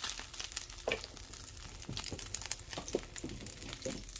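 Avocado oil crackling and spitting in a hot frying pan after chicken has been seared in it: a steady scatter of small pops over a soft sizzle.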